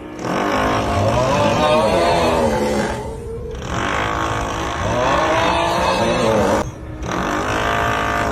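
Looped meme sound effect: a drawn-out 'uuuuuugghhhhh' snoring groan whose pitch bends up and down, heard three times with short breaks between, over drilling noise.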